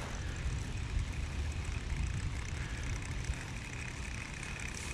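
Low, uneven wind rumble on the microphone, with a faint steady high-pitched drone coming in about a second and a half in.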